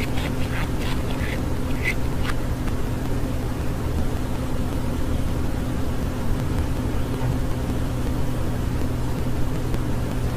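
A steady low hum, with a few short, high chirps from a budgerigar in the first two seconds or so.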